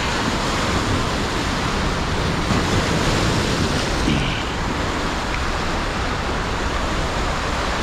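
Turbulent river whitewater rushing past a rocky bank, a steady, even rush of water.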